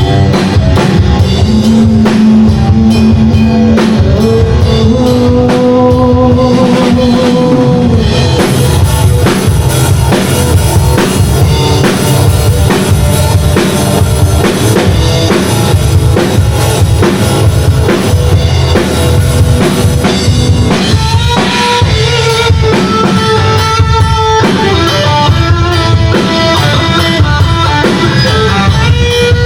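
A band playing rock music: a drum kit keeps a steady beat with bass drum and rimshots under guitar and held melodic notes.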